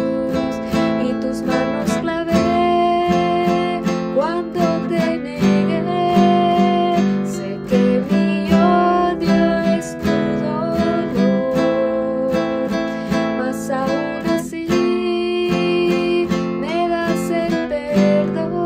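Acoustic guitar strummed, playing the chord accompaniment of a song.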